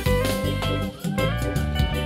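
A live band plays a short instrumental fill between sung lines, with guitar over steady bass notes and no singing.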